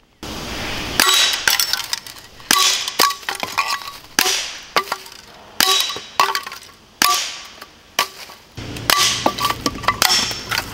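A .177 Gamo P-25 CO2 blowback pellet pistol firing in quick succession, with pellets striking tin cans that ring with a short metallic clang after each hit. There are about a dozen sharp cracks, less than a second apart in places.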